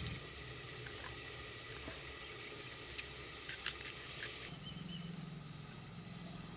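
A spoon stirring a wet spice paste in a small steel bowl, heard as a few faint, soft clicks and scrapes over a quiet background.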